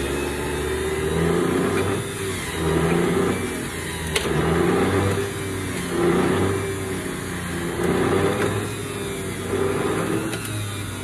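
Electric centrifugal juicer's motor running under load. Its note dips and recovers every second or two as produce is pushed down the chute.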